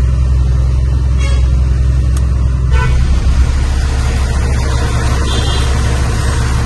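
Truck engine running steadily under way, a loud low drone with road noise.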